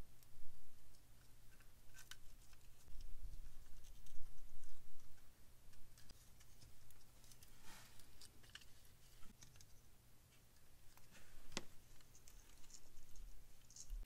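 Scattered light clicks, taps and rustles from small plastic electronics and their wires being handled and test-fitted on a micro RC crawler chassis, over a faint low hum.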